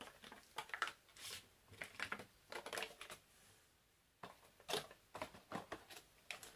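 Clear plastic packaging crinkling and clicking as a smart band is fitted back into its plastic case by gloved hands, in short irregular bursts with a pause of about a second near the middle.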